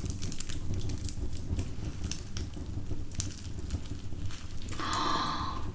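Wood fire crackling in a fireplace: scattered sharp pops over a steady low rumble, with a brief higher-pitched sound near the end.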